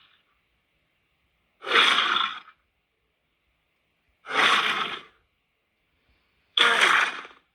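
Three short vocalizations from the monster Megoliah, each under a second long and a couple of seconds apart.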